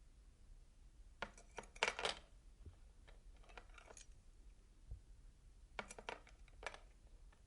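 A bunch of metal keys clattering and jingling on a wooden table in short bursts of clinks: a dense cluster about a second in, a fainter one around the middle, and another near the end.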